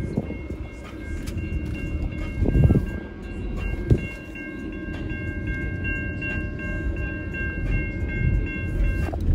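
Grade-crossing warning bell ringing steadily over the low rumble of a passing double-stack freight train, with a couple of low thumps a few seconds in. The bell stops near the end as the train clears the crossing.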